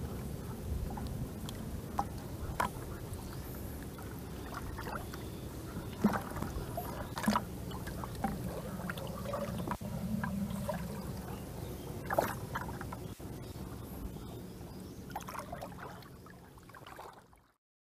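Shallow water sloshing and splashing around a plastic bucket held in the water, with scattered small splashes and knocks as small fish are handled and dropped in. The sound fades out near the end.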